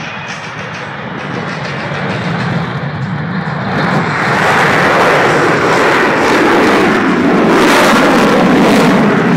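Jet roar from an F-22 Raptor's twin Pratt & Whitney F119 turbofans. It grows louder, swells sharply about four seconds in, then holds at a loud, steady level.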